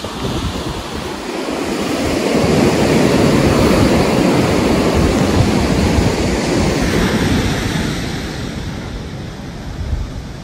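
Ocean surf breaking and washing up a sandy beach, swelling about two seconds in and easing off after about seven seconds, with wind buffeting the microphone.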